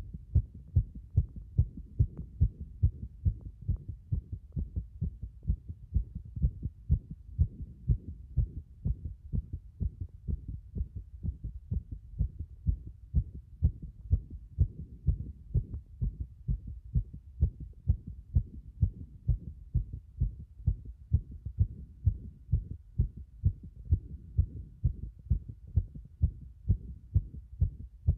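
Fast human heartbeat recorded over the cardiac apex of the chest: a rapid, regular run of low, dull thuds, beat after beat.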